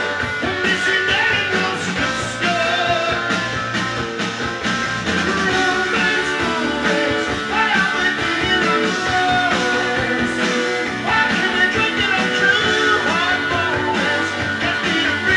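Rock music with guitar and singing, played back from a vinyl LP on a Dual 1257 turntable.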